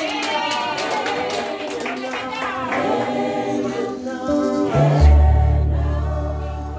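Church choir singing in harmony without instruments. About five seconds in, a loud, deep, steady tone comes in and holds under the voices.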